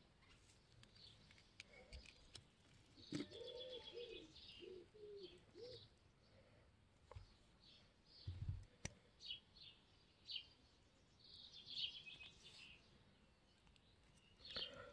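Faint birdsong: short high chirps in two spells, with a lower wavering call under the first, and a few soft clicks.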